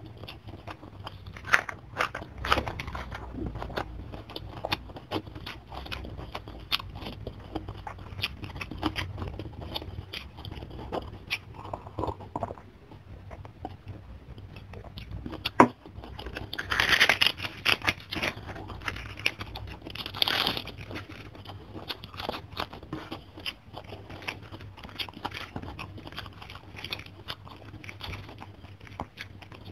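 Close-miked eating: chewing and crunching of rice with raw vegetables and petai, with wet mouth clicks throughout. Partway through there is a drink from a cup, followed by louder swallowing noises.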